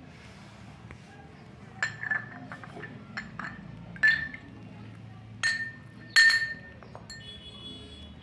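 A metal coin clinking against a drinking glass, struck about seven times as it is lifted out of the liquid, each clink ringing briefly.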